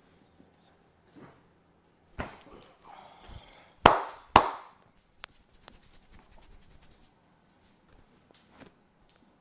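Massage strikes of a barber's hands on the body: a few sharp slaps, the two loudest half a second apart about four seconds in, with softer taps and rubbing between.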